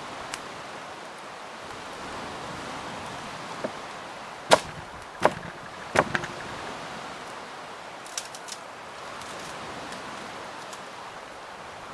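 Firewood cracking: three loud sharp cracks in quick succession near the middle, a few fainter ticks around them, over a steady rushing background.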